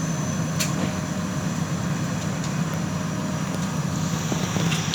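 Diesel engine of a JCB backhoe loader running steadily, with a thin high whine over it and a light knock about half a second in.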